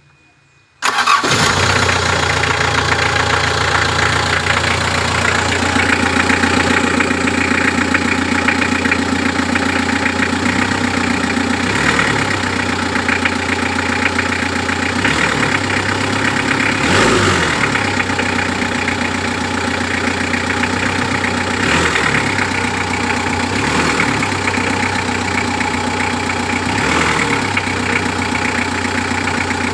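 Mitsubishi L300 FB van's engine, which comes in suddenly about a second in and then idles steadily, running with the repaired alternator fitted.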